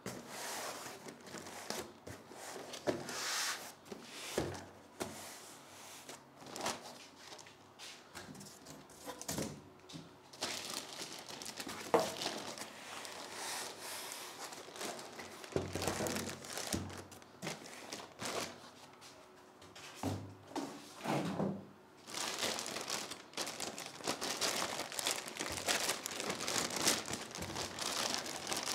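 Plastic bag crinkling and foam packing rustling as a boxed mini PC is unpacked by hand. It comes in irregular bursts with a few sharp knocks and grows busier and steadier over the last several seconds.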